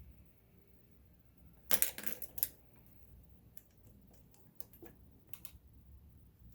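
Small metal parts of a Kenmore 1802 sewing machine clicking and clattering as the needle plate and its screws are taken off. There is a cluster of sharp clicks about two seconds in, then a scatter of lighter ticks.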